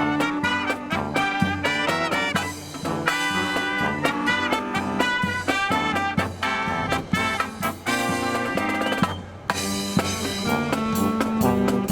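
Marching brass band with drums playing an upbeat swing-style tune, snare and rimshot strokes under the brass, with strong wind noise rumbling on the microphone.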